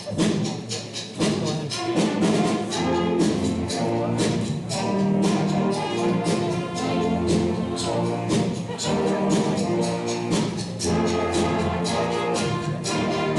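High school band playing a piece, brass to the fore, over a steady drum beat.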